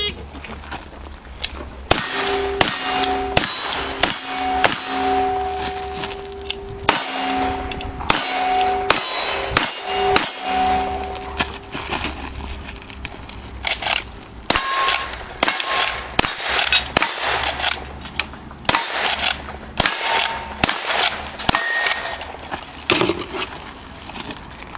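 Rapid string of gunshots, many followed by steel targets ringing with a sustained clang. After a short pause about halfway through, a second run of shots follows with shorter rings.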